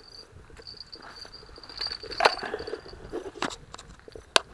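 A steady high insect trill, broken briefly near the start, with scattered crunches and knocks of footsteps on loose shale gravel. The loudest knock comes about two seconds in, and a short sharp click comes near the end.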